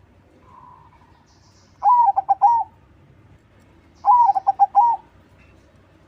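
Zebra dove (perkutut, a crossbred 'crossing' song bird) cooing: two loud rippling phrases of several quick notes each, about two seconds apart. A faint soft note comes about half a second in.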